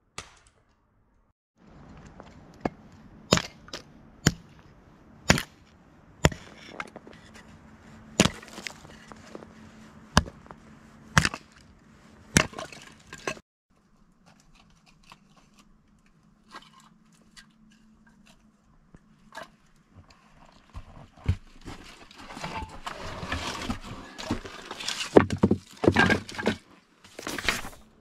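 Firewood being broken up for the stove: a run of sharp wooden cracks about once a second, then, after a pause, a dense stretch of rustling and knocking near the end.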